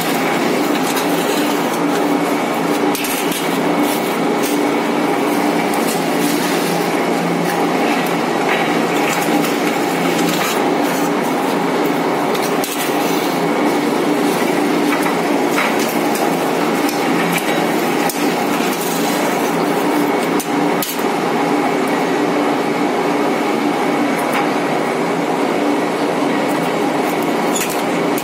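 High-speed roll forming machine running, its rollers forming steel strip into POP false-ceiling channel: a loud, steady running noise with a low hum and a faint higher whine, dotted with irregular metallic clicks and clinks.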